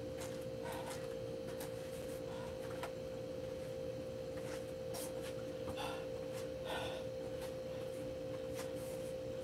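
Faint hard breathing, short breaths about once a second, of someone recovering between cardio intervals, over a constant steady tone.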